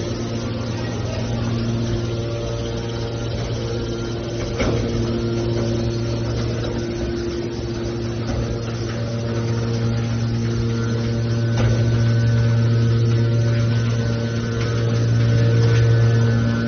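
Hydraulic mobile scrap car baler running with a steady low droning hum from its engine-driven hydraulic power unit. Two sharp metallic knocks come through, about five seconds in and again near twelve seconds.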